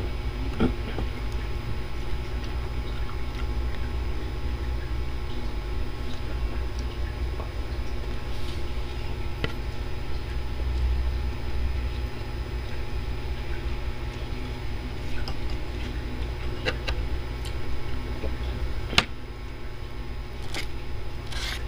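Chewing and eating sounds, with occasional sharp clinks of a metal spoon and fork against a ceramic plate, over a steady low hum.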